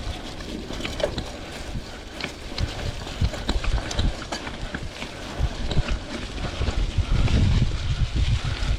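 Mountain bike rolling over dirt singletrack: tyre noise with a steady stream of irregular clicks, rattles and knocks from the bike over the rough trail, and a louder low rumble about seven seconds in.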